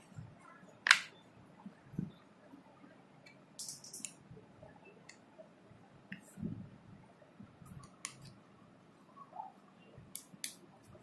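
Scattered sharp clicks and brief rustles of objects being handled, the loudest click about a second in.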